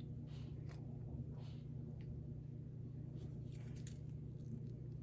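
Faint clicks and soft rustles from handling a honey bottle held upside down over a chicken wing, over a steady low hum.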